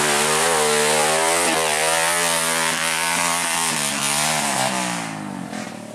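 Dirt bike engine revving up and down repeatedly, then fading away about five seconds in.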